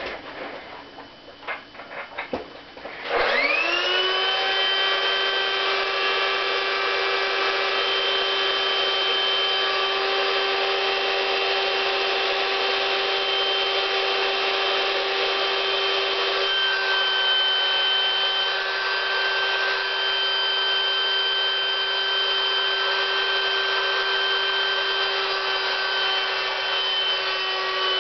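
Electric air pump starting up about 3 seconds in with a quick rising whine, then running steadily as it inflates a latex inflatable suit. A few faint clicks come before it starts.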